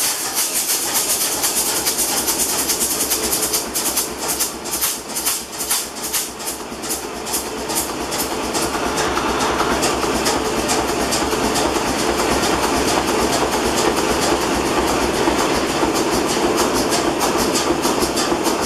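Atlas Imperial diesel engine just started and running, with a rapid rhythmic clatter over a hissing, rumbling background. It runs unevenly at first and settles into a steadier run about eight or nine seconds in.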